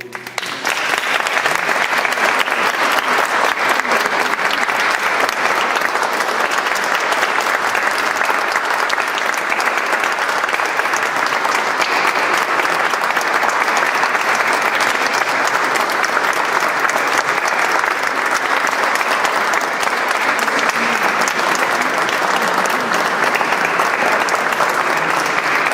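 Audience applauding steadily in a large reverberant cathedral, starting just after a choir's final chord dies away.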